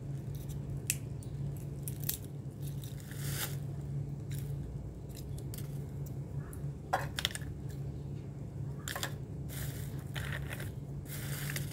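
Cracked walnut shells being broken apart and picked off by hand: irregular crackling snaps and crunches of shell, over a steady low hum.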